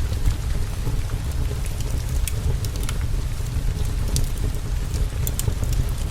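Steady rain over a continuous low rumble, with scattered sharp crackling pops.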